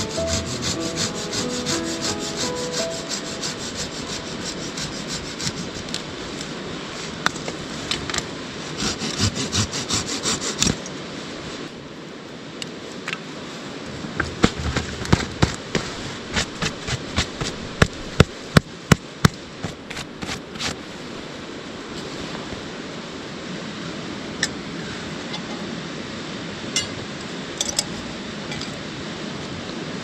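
Folding hand saw cutting a dry stick, rapid scraping strokes for about ten seconds. Then a run of sharp snaps and clicks as sticks are fed into a small wood-burning stove, over the steady rush of a river.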